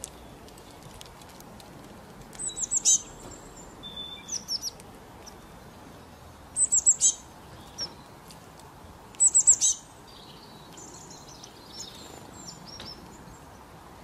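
Wild songbirds calling: three bursts of quick, high chirps a few seconds apart, with softer chirps and twittering between them, over a faint steady hiss.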